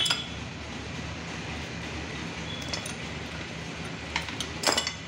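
Steel tractor clutch parts clinking as the pressure plate's release fingers and springs are handled and fitted: a few light metallic clicks, the loudest cluster near the end, over a steady low hum.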